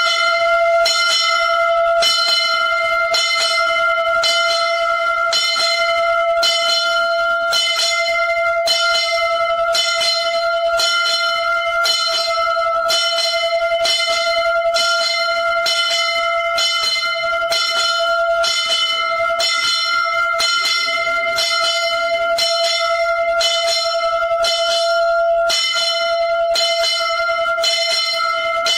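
Temple bell rung over and over at an even pace during the aarti, its ring holding one steady pitch.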